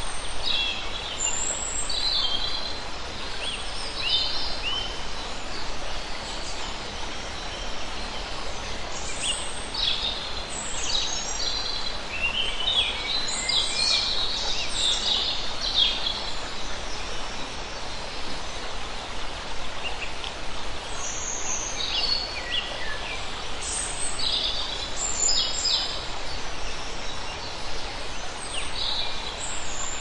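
A forest stream running over rocks, with many birds chirping and calling over the water. The calls come thickest in the middle and near the end.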